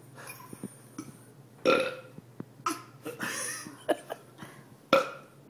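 Burping: two loud, short burps, one under two seconds in and another near the end, with smaller sounds between them.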